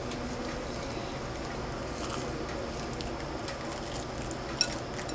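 Steady low background hum with a few faint, light clicks and ticks scattered through it.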